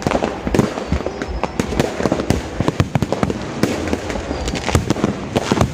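Fireworks going off, a dense irregular stream of sharp bangs and crackles.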